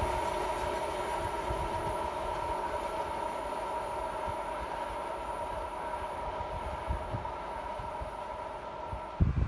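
Electric train running on the line, its traction equipment giving a steady whine of several tones over a rumble that slowly fades. Just before the end the sound breaks off abruptly into loud low buffeting.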